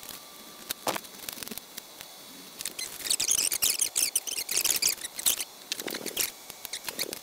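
Crinkling and rustling of plastic parts bags and paper instruction sheets being handled, loudest for a couple of seconds in the middle, with scattered small clicks and knocks of parts before and after.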